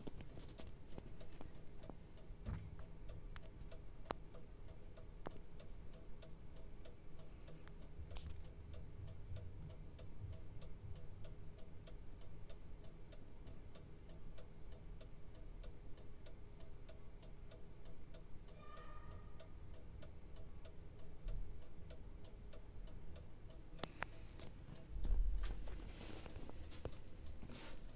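Quarter-chiming mechanical clock movement ticking steadily, running again. A brief faint ring a little past the middle and a dull low bump near the end.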